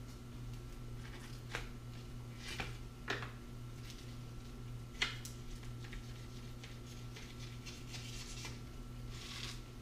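Hand fillet knife cutting a crappie on paper over a countertop: a few sharp clicks and soft crunches as the blade works through the fish, and a scrape near the end, over a steady low hum.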